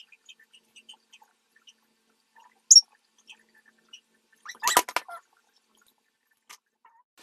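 Small wet lip and mouth noises as red liquid lipstick is applied with a wand: faint soft clicks throughout, a sharp click about three seconds in, then a louder lip smack a little before five seconds in as the lips are pressed together to spread the colour.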